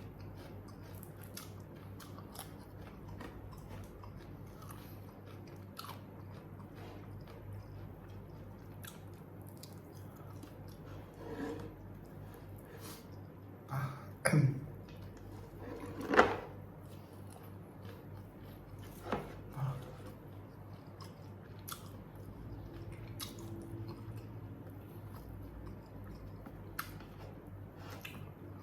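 A person chewing a crispy smashed fried chicken (ayam geprek) meal close to the microphone, with many small crunches and mouth clicks. A few louder bites and crunches come about halfway through.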